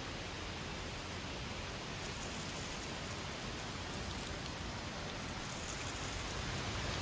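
Steady rain falling on wet fallen leaves.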